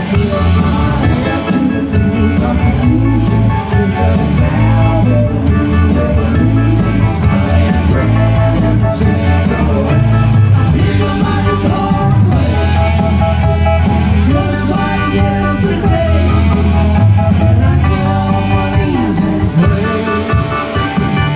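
Rock band playing live: electric guitar, bass and drum kit, with singing.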